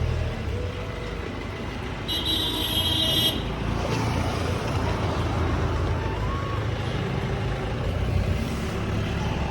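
Road traffic running steadily, with a short high tone about two seconds in that lasts about a second.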